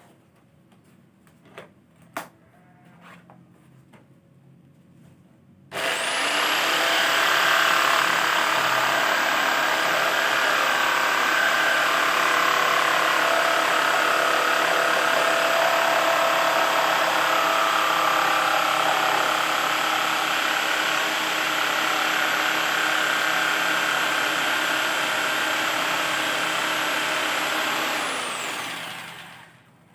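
Electric jigsaw cutting an acrylic letter: a few light clicks, then the motor starts about six seconds in with a quick rise in whine. It runs steadily for about twenty seconds, then winds down and stops near the end.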